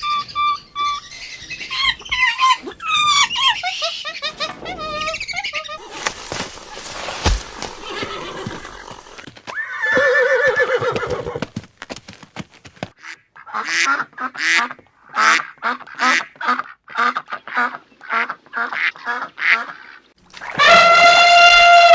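Farm birds calling: high squawks and chirps for the first few seconds, then a run of short repeated calls about two a second, and one long drawn-out call near the end.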